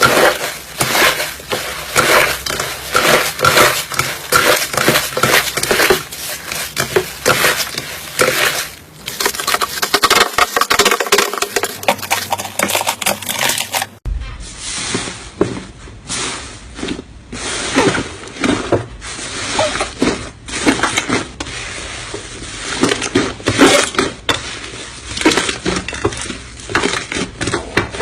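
Slime being squeezed and pressed by hand, making a dense run of sharp crackling pops and clicks.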